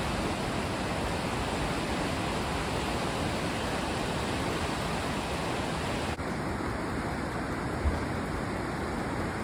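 Fast-flowing mountain river rushing in a steady roar of water, turning slightly duller about six seconds in.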